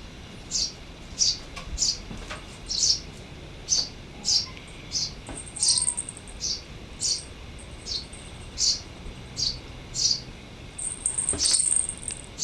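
A wild bird calling with short, high chirps repeated steadily, roughly one every 0.7 seconds. Twice a thin, very high trill is held for about a second.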